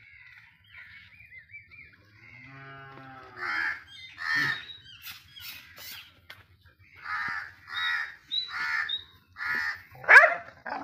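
A dog barking in short, separate barks: a pair about three and a half seconds in, then a quicker run of five or six from about seven seconds in, the last one the loudest.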